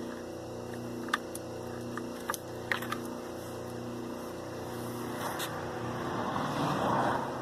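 Wire-stripping machine running with a steady hum while copper wire is fed through it, with a few sharp clicks in the first three seconds and a louder rasping swell from about five seconds in.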